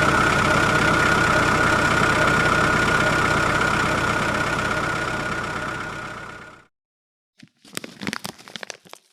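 A motor running steadily with a high, even hum. It fades out over about a second and a half, about two-thirds of the way in. After a short silence comes a quick cluster of clicks and rattles.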